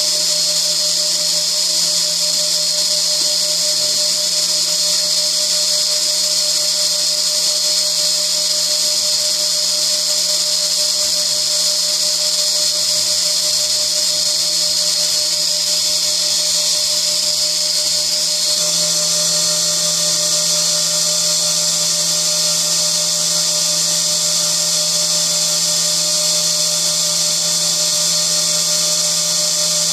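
Small CNC mill's high-speed spindle running with a steady, high-pitched whine while engraving graduation lines into an aluminium lathe dial. A little past halfway a lower hum and a few extra tones join in.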